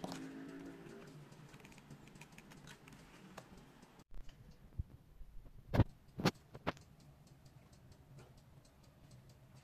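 Faint clicks and taps of a foam-and-card puzzle model and metal tweezers being handled on a table. Four sharper knocks come between about five and seven seconds in, with the music fading out in the first second.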